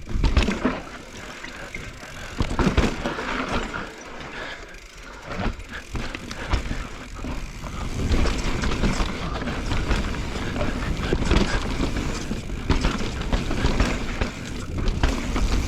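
Pivot Switchblade mountain bike descending a rough downhill trail at speed: tyres rattling over dirt and roots, with the chain and frame clattering in frequent short knocks over the bumps and a low rumble of air passing the helmet camera.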